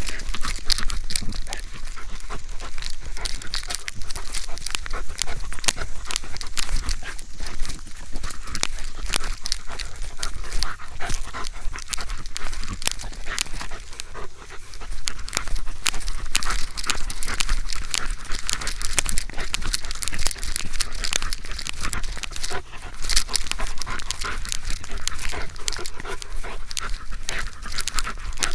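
Search-and-rescue dog panting while working a search, heard right up close from a camera mounted on its harness. Constant crackling and rustling noise close to the microphone runs under the panting.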